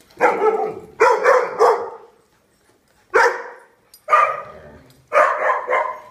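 Dog barking repeatedly during play: about nine sharp barks in quick runs of one to three, with short pauses between the runs.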